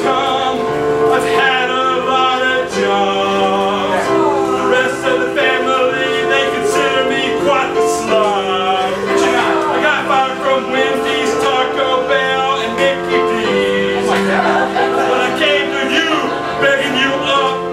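A man singing an improvised song with a wavering voice over held chords from an accompanying instrument, the chords changing every second or two.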